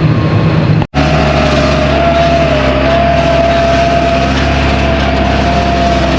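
Tractor engine running steadily under load, with a steady whine over it. The sound drops out briefly just under a second in, and the engine sound picks up again afterwards.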